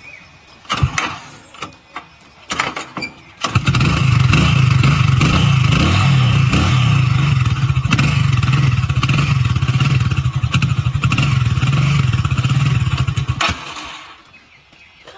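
Underbone motorcycle being started: a few knocks and clatters from starting attempts, then the engine catches about three and a half seconds in. It runs for about ten seconds and then dies, a stubborn hard-starting engine that keeps stalling.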